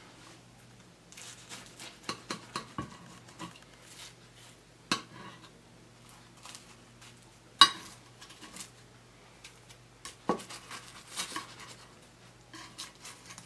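A knife sawing through a baked crescent-dough crust and scraping and clicking against a ceramic baking dish, with a few sharp knocks, the loudest about seven and a half seconds in.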